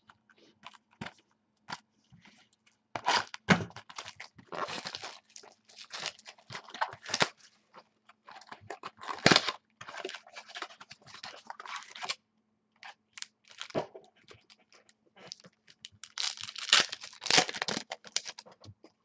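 Trading-card pack being torn open and the cards handled: irregular tearing and crinkling of the wrapper with clicks of cards. A faint steady hum runs underneath.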